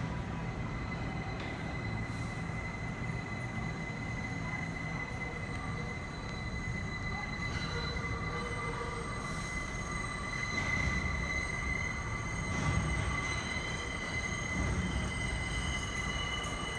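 New York City subway train wheels squealing against the rails, a sustained high-pitched squeal over a low rumble, growing a little louder in the second half.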